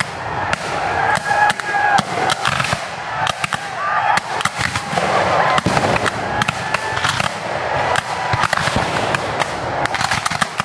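Black-powder musket fire from a reenactors' battle line: many sharp shots at irregular intervals, ragged rather than in one volley, with voices talking in between.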